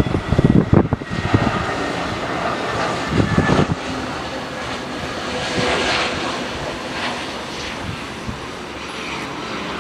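Airbus A320neo's CFM LEAP-1A turbofan engines on final approach and flare: a steady jet rush with faint whining tones. Gusty buffeting, typical of wind on the microphone, in the first four seconds.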